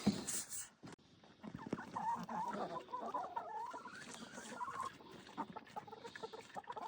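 Chickens clucking softly and intermittently, with a single knock at the very start.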